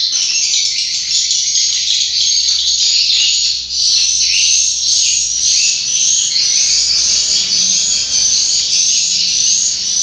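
Swiftlets twittering: a dense, continuous chorus of high chirps, with one rising chirp repeating about twice a second in the second half.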